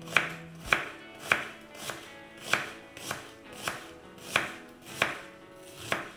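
Kitchen knife slicing an onion into half-rings on a wooden cutting board. Each cut ends in a sharp knock of the blade on the wood, about ten cuts at an even pace.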